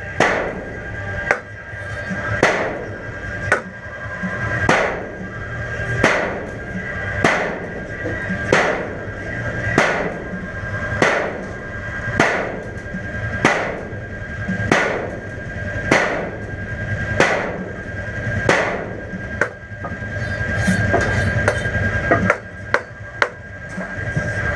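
A looping ambient sound effect: a rhythmic beat about every 1.2 seconds, each one swelling up to a sharp knock, over a steady high tone. Near the end it turns into a steadier wash with a few sharp knocks.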